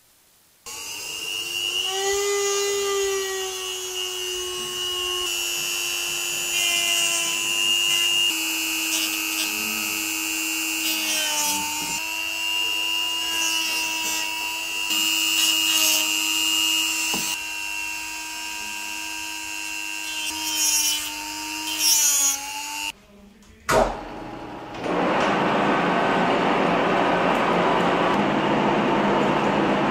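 Electric power tool running steadily for over twenty seconds, its pitch sagging and recovering a few times as it takes load. After a short break and a click, a steady rushing noise follows.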